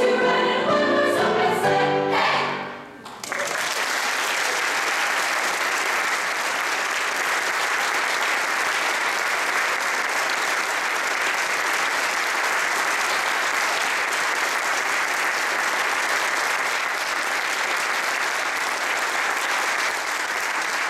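A girls' choir sings its final chord, which fades out about three seconds in. Audience applause then breaks out suddenly and continues steadily.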